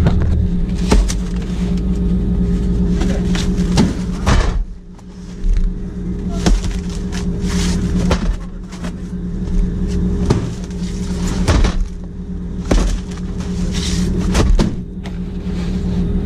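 Steady drone of a boat's engine. Over it come repeated thumps and scrapes as cardboard boxes of bait are dropped and slid onto the metal boards of the hold, about ten knocks over the stretch.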